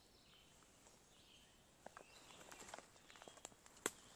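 Near silence: faint outdoor ambience with a few soft scattered ticks and rustles from about two seconds in, and one sharper click near the end.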